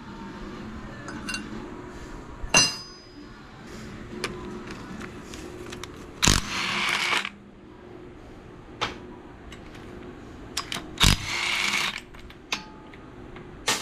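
Metal parts and tools clinking and knocking during the teardown of a generator's engine, with one ringing metal clink. Two bursts of about a second each from a power tool stand out as the loudest sounds, one near the middle and one a few seconds later.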